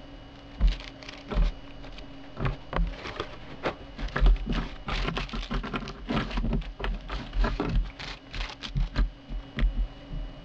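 Small plastic zip-lock bags of accessories crinkling in the hands and being set down on a wooden table with light knocks. The crackles and taps come in a quick, irregular run, busiest in the middle.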